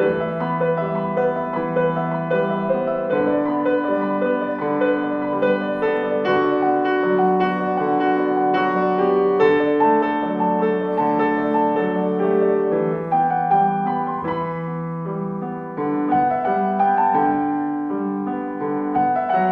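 Steinway & Sons concert grand piano played solo: a continuous flowing passage of sustained notes and chords, a little softer about three-quarters of the way through.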